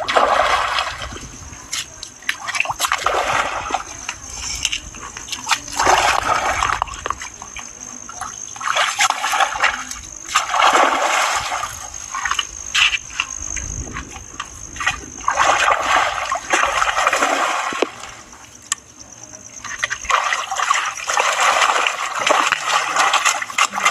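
Water splashing in repeated bursts a few seconds apart, as a hooked rohu thrashes at the surface.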